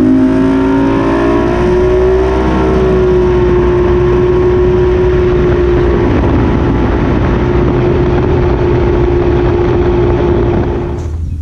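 2004 Mercury 150 EFI two-stroke V6 outboard on a bass boat running at speed: its pitch rises for the first couple of seconds as the boat accelerates, then holds steady at a high cruising speed, with a loud rush of wind and water. The sound cuts off sharply near the end.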